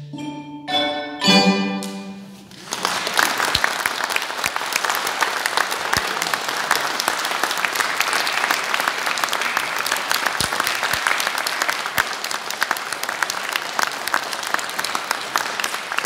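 A handbell choir strikes its last chords, which ring and die away, then audience applause breaks out about two and a half seconds in.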